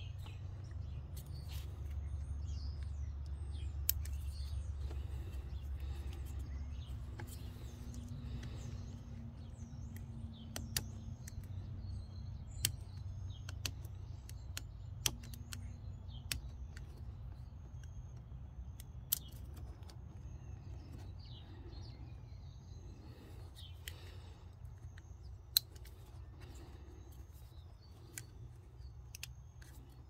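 Scattered sharp clicks from a plastic wiring connector and pin-removal pick being handled, over a steady low rumble with birds chirping faintly.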